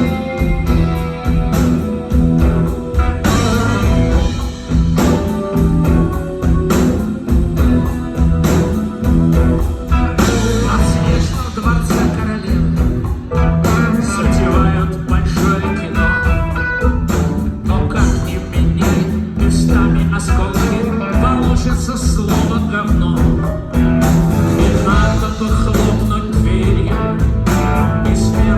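Rock band playing an instrumental passage of the song, guitar to the fore over bass and drums with a steady beat.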